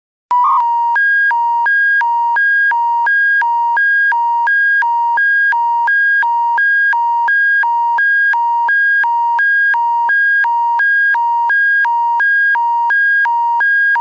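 Emergency alert attention tone introducing an Alberta Emergency Public Warning System bulletin: after a short burst, two electronic tones alternate low-high at an even pace, a little over one cycle a second, loud and steady.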